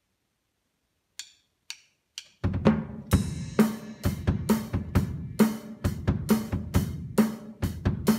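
Acoustic drum kit: after about a second of silence, three short clicks count in. Then the kit comes in with a steady linear pattern of bass drum and hand strokes on the snare and toms (the KRLLKLRR kick-and-hands exercise), with a strong accent about twice a second.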